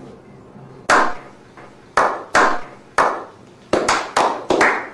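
A small group slow-clapping. Single sharp hand claps start about a second apart and come faster and closer together towards the end, each with a short echoing tail.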